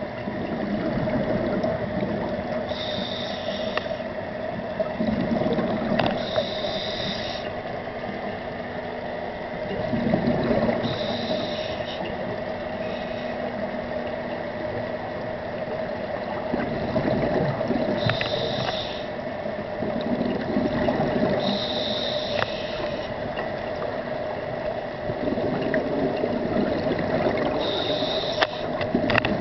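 A diver's scuba regulator heard underwater: a hissing inhale of about a second every several seconds, each followed by a low rumble of exhaled bubbles, over a steady hum.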